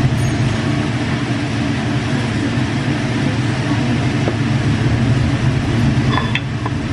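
Steady low rumble and hiss of a Korean barbecue table grill with meat sizzling on it, under restaurant ventilation noise. A few light clicks of tableware come about six seconds in.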